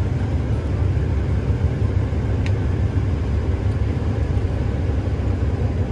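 New Holland combine running in first gear on a slope, a steady low rumble. The drive wheels are losing grip on the hill.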